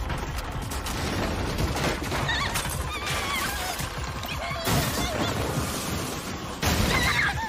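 Anime fight audio: high, wavering vocal cries over a busy background, with two loud crashes, one a little before five seconds in and a longer one near the end.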